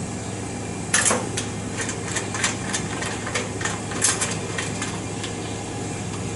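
Irregular metal clicks and knocks as a pneumatic cylinder is fitted onto a slotted metal training panel and hooked into its groove. The loudest click comes about a second in, another about four seconds in, over a steady low hum.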